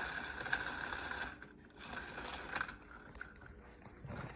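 The freshly rebuilt gear train of a Pentair Racer pool cleaner turned by hand: a steady whir with light ratchet-like clicks for about a second and a half, then a fainter, shorter whir with a few clicks. The gear and wheel spin on newly fitted bushings, which should let them turn freely.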